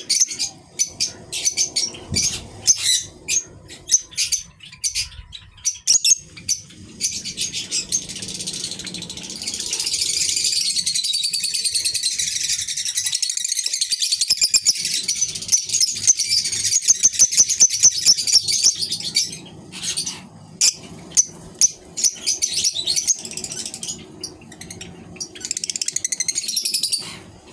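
A pair of lovebirds, a green Fischer's lovebird and a blue masked lovebird, calling in rapid, sharp, high chirps. About a third of the way in the calls run together into roughly ten seconds of continuous shrill chattering, then break back into separate chirps.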